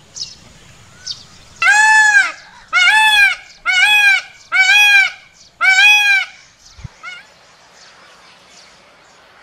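Male Indian peafowl (peacock) calling: a series of five loud calls about a second apart, each rising and then falling in pitch. A few short, faint bird chirps come before and after the calls.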